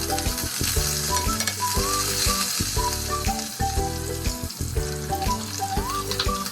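Fried rice ingredients sizzling in hot oil in a pan while being stirred, with background music with a steady beat playing over it.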